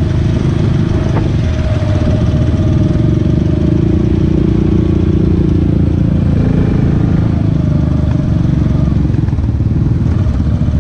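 ATV engine running under way, heard close up from the quad itself, its pitch rising and falling a little with the throttle.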